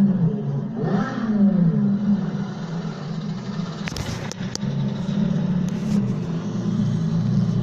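Supercar engines in a street: a steady low engine drone, with engine notes falling in pitch over the first couple of seconds as revs drop. There are a few sharp clicks around the middle.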